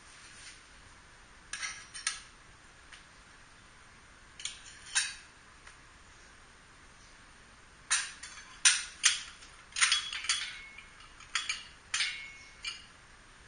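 Metal parts being handled: irregular light metallic clinks and taps, a few at first and then a quick cluster in the second half, some ringing briefly.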